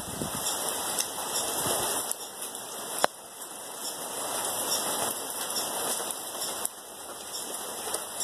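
Heavy rain falling, a steady dense hiss with many small drop impacts. A single sharp click about three seconds in.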